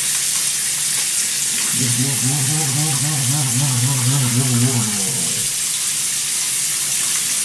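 Tap water running steadily into a sink, with face paint being washed off. From about two seconds in a low, wavering voice hums for about three seconds.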